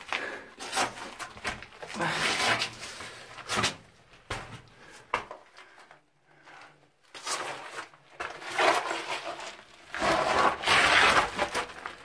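Irregular scraping and scuffing of a person's clothes and boots on rock while squeezing through a tight cave passage, with a brief lull about six seconds in.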